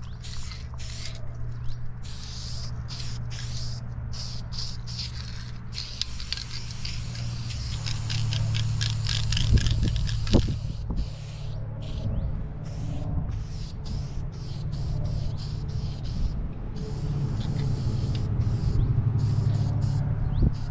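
Aerosol spray paint can hissing in many short bursts and a few longer sprays, with brief silences between, over a low steady hum.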